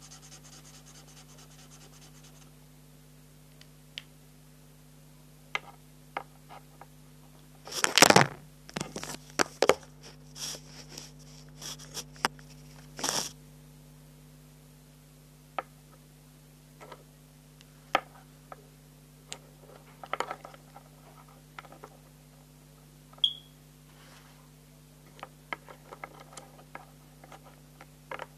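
Handling noise from mini markers and their case: scattered clicks, taps and rustles, heaviest about eight seconds in and again around thirteen seconds. A steady low hum runs underneath, and there is one short high beep a little past two-thirds of the way through.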